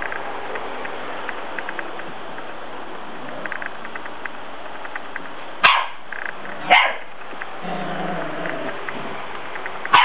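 A puppy giving three short, high, sharp play barks: about six seconds in, a second later, and near the end, with a lower growl between the second and third.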